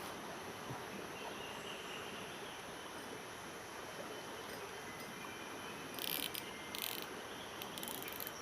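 Outdoor ambience with a steady hiss, and insects chirping in short high-pitched bursts about six seconds in and again near the end.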